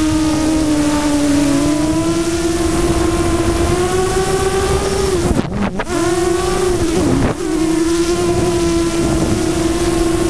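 Multirotor drone's electric motors and propellers whining steadily, the pitch wavering with throttle and dropping sharply twice, at about five and a half and seven seconds in, before climbing back. A low rushing wind noise sits under it, heard from the camera riding on the drone.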